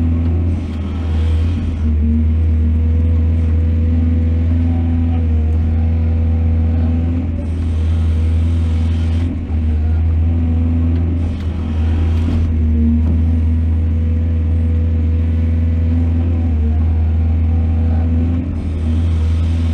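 Excavator diesel engine running steadily under load with a deep hum, swelling with bursts of rushing noise a few times as the machine works.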